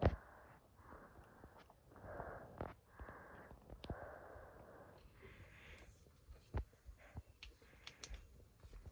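A single sharp crack right at the start, a pellet gun firing, followed by rhythmic breathing close to the microphone and a few light clicks.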